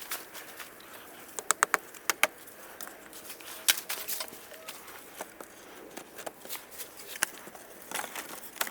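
Handling and work noises: a scatter of sharp cracks and clicks, with a quick run of four about a second and a half in, over faint rustling.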